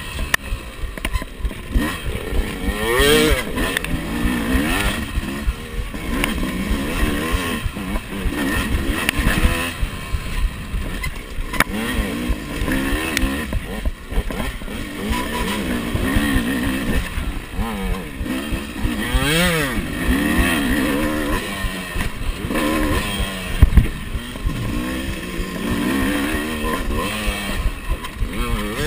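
Yamaha YZ two-stroke dirt bike engine revving up and falling off again and again as the throttle is worked on a trail ride, over a steady low wind rumble. One sharp knock late on.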